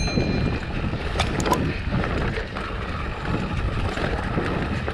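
Wind rumbling on a handlebar-mounted camera and tyres rolling on a dirt and gravel track as a Rocky Mountain Powerplay electric mountain bike descends at speed, with a few sharp knocks and rattles of the bike over bumps.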